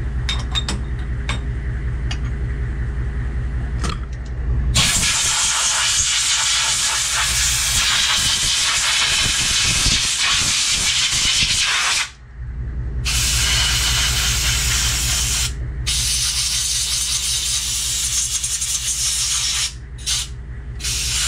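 Compressed-air blow gun blowing chips off a freshly machined aluminum part and out of the mill vise, hissing loudly in long bursts with short breaks, starting about five seconds in. Before that, a few light clicks as the vise is loosened, over a steady low hum.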